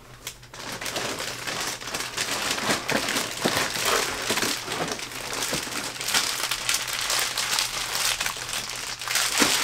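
Plastic packages of soft-plastic fishing lures crinkling and rustling continuously as a hand rummages through a box and grabs a bunch of them.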